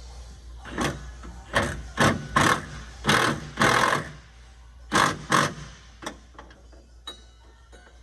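A power tool run in about nine short bursts, each under half a second, as the shock mounting nuts are run down; the bursts stop about six seconds in. Background music plays underneath.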